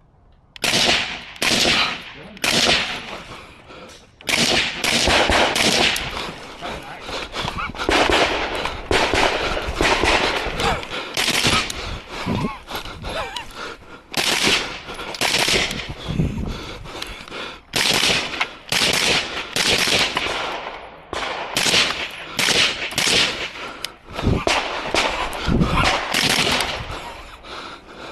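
Rifle shots fired rapidly during a practical rifle stage: a few spaced shots at first, then quick strings of several shots with short pauses between them.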